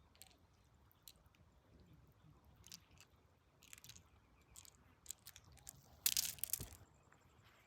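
Faint scattered crunches and scrapes of stones and gravel, with one louder crunching scrape about six seconds in.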